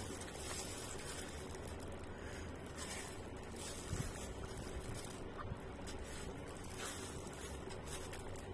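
Soft handling noise of a plastic-gloved hand mixing rice in a styrofoam food box, with a small click about four seconds in, over a steady background hiss and low hum.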